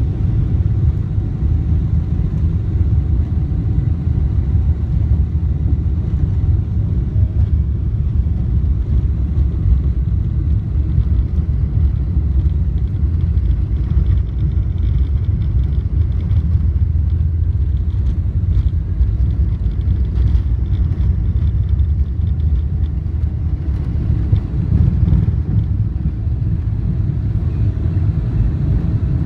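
Cabin noise of a Boeing 777-300ER on its take-off roll: the GE90-115B engines at take-off thrust and the landing gear rolling on the runway make a loud, steady, deep rumble, with faint light rattles through the middle of the run.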